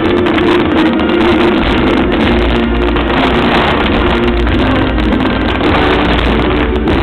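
Fireworks going off in rapid succession, a loud continuous rumble and crackle, mixed with the show's music soundtrack.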